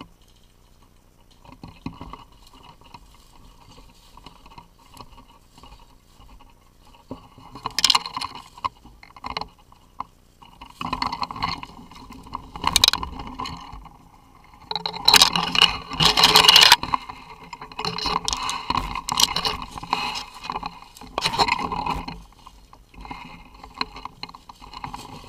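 Rustling and scraping of dry brush and branches brushing past the rifle as the player pushes through undergrowth, with footsteps on crusted snow and dead leaves. It comes in uneven bursts, loudest a little past halfway.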